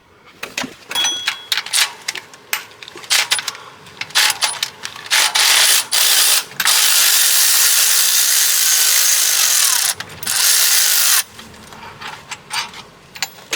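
Socket and ratchet clicking on the water pump bolts for the first few seconds. Then, about five seconds in, a power ratchet runs in long steady stretches for about six seconds, spinning the bolts out.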